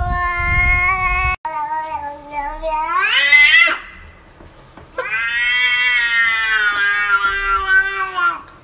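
Cats meowing in long, drawn-out, human-like calls. A tabby's yowl is cut off about a second in. Then another cat gives a long meow that rises in pitch at its end, and after a short pause a second long meow of about three seconds.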